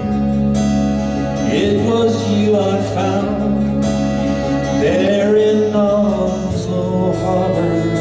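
Live folk music: a bowed violin over steady low bass notes, with a voice singing two long wavering phrases.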